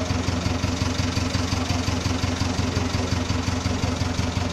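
A steady low drone with rapid, even pulsing, mechanical in character, that keeps on without change.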